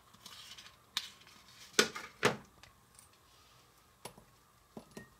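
A knife scraping and clinking against a small metal cake pan as cake is cut and lifted out, with a few sharp taps, the loudest about two seconds in. A small electric water-pump motor buzzes faintly and steadily underneath.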